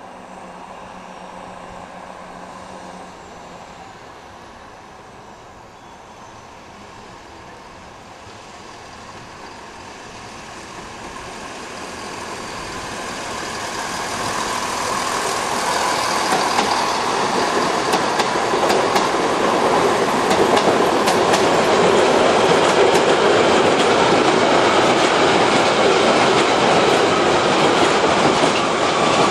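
Passenger train rolling past close by on a main line, faint at first, then growing loud about halfway in and staying loud as the wheels clatter rapidly over rail joints. A whine falls slowly in pitch through the loud part.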